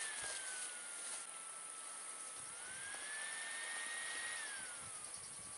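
A distant motor whining, its pitch gliding slowly up and down twice, over a steady high-pitched hiss.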